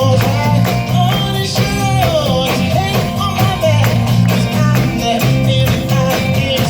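Pop music: a voice singing over a band with guitar, bass and a steady drum beat.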